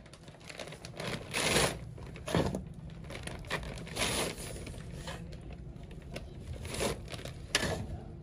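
A metal scoop scraping into a heap of detergent washing powder and the powder pouring into a plastic-lined bag: several short swishes and crinkles over a low steady hum.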